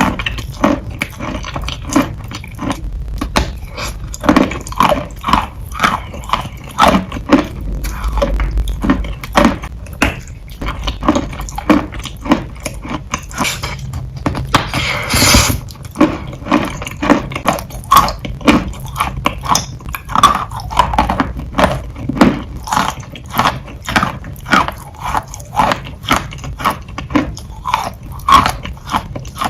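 Close-miked chewing of wet, soupy chalk: a steady run of wet crunches, about two to three a second, with a louder, noisier stretch about halfway through.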